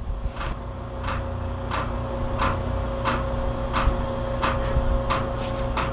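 Surveyor's hammer percussion-sounding a fibreglass boat hull: sharp taps at an even pace, about three every two seconds, over a steady hum. Sounding checks the laminate for voids or delamination.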